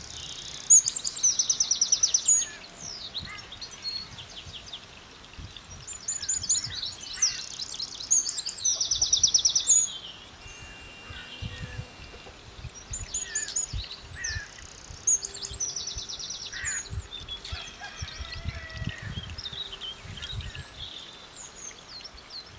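Garden songbirds singing: two loud, rapid trilled song phrases, one in the first couple of seconds and another from about six to ten seconds in, with fainter chirps and calls from other birds between and after them.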